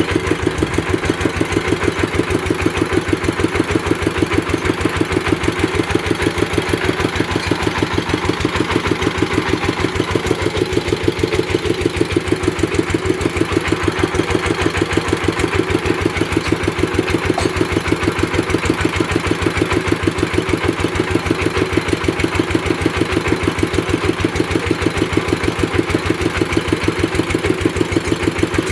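Engine of a well-drilling rig running steadily with a fast, even beat.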